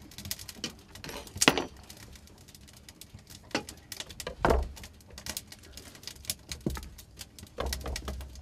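Scattered light clicks and clinks of plates and cutlery at a meal, with a heavier dull knock about halfway through.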